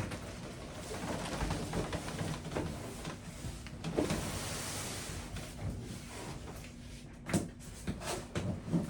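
Cardboard box and packing material being handled: rustling and scraping, a longer hissing slide about halfway through, and two sharp knocks near the end.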